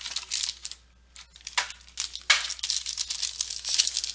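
Trading-card box packaging being torn open and crinkled by hand: a short burst of rustling, a brief pause, then louder, continuous crackling from about halfway through.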